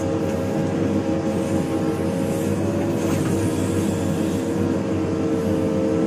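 JCB 3DX backhoe loader's diesel engine running steadily under load while the backhoe digs out a brushy earthen field boundary, heard from the operator's cab.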